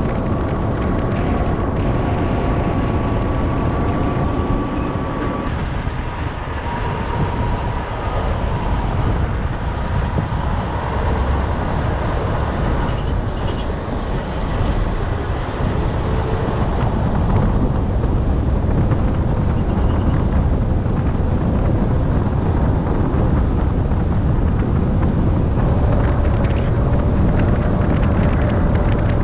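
Semi-truck on the move at road speed: a steady drone of engine, tyres and wind heard from the cab, with a faint whine, getting a little louder in the second half.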